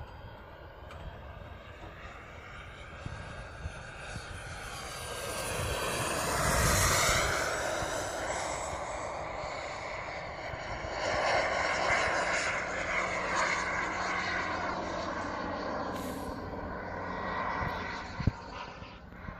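The ATJ 120 gas turbine of a CARF Eurosport model jet, with 12 kg of thrust, whining through a fly-past. It grows loud about seven seconds in, its pitch dropping as it goes by, then swells again a few seconds later and fades. There is a single sharp knock near the end.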